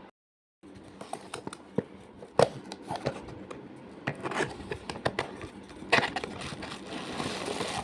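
Packaging of a toy bubble gun being handled and opened: rustling and crinkling with irregular sharp clicks and knocks, the loudest about two and a half seconds in and again around six seconds in. It starts after a brief dead-silent gap.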